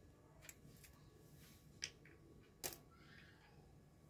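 A few light clicks of tiny kitchenware being handled, the sharpest about two and a half seconds in, over near silence.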